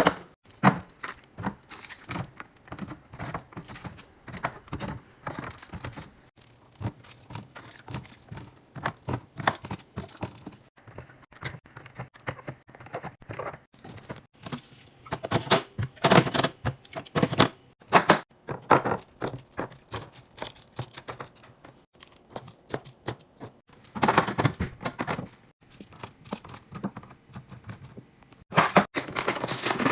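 Irregular clicks, taps and thunks of plastic and glass containers, lids and drawers being handled, with crinkling and tearing of food packaging. Denser runs of handling come midway and near the end.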